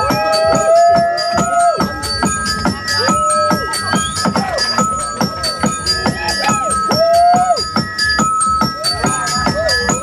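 Loud techno dance music with a steady beat and a held high synth tone, gliding pitched sounds running over it.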